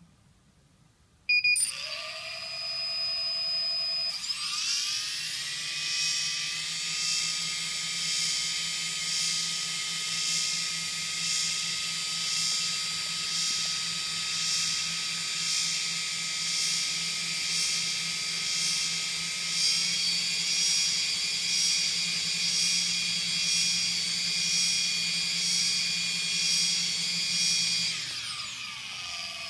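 Sunnysky V2216 800KV brushless motor: a short beep, then the motor spins up about four seconds in and runs with a high whine whose loudness swells and fades about once a second, before spinning down near the end. It is a strange noise: the motor is not running smoothly.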